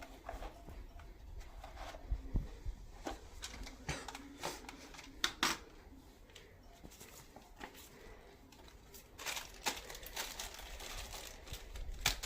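Scattered clicks, knocks and rustling in a small room over a low rumble, with a few sharper knocks about two, five and twelve seconds in.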